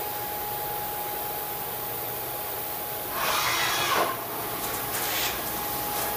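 HH Roberts TW40 CNC vertical machining center running with a steady whine. About three seconds in, flood coolant sprays hard against the enclosure for about a second, and a shorter spray follows near five seconds.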